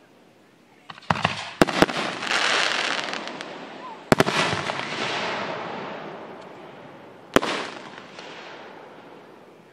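Aerial fireworks shells bursting. A few sharp bangs come about a second in, a louder bang about four seconds in and another near seven and a half seconds, each followed by a crackling hiss that fades away.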